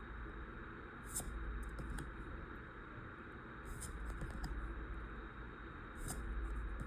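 Pokémon trading cards being handled and flipped through one by one: soft clicks and rustles, with a brief sharp swish of a card sliding about every two and a half seconds.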